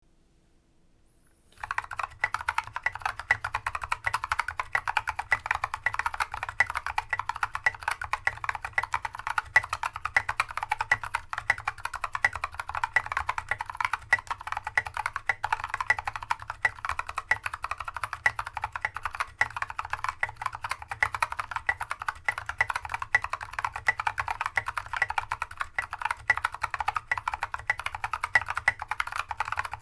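Fast, continuous typing on a Mercury Rocketeer mechanical keyboard, starting about a second and a half in. It has tactile Holy Panda switches, with the stem posts drilled out so the stems don't bottom out, SA keycaps, a brass plate and a foam-filled case.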